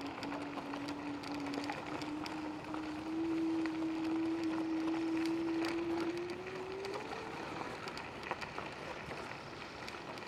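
Electric scooter's motor whining at a steady pitch, stepping up about three seconds in and rising again around six to seven seconds as it speeds up, then dying away. Wind and tyre noise on a gravel road run underneath.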